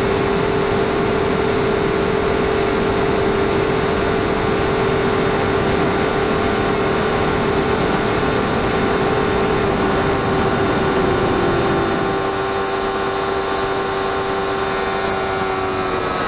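Honda CBR1000RR Fireblade's inline-four engine holding high, steady revs at speed, over heavy wind rush. About twelve seconds in, the note dips slightly and the sound gets a little quieter.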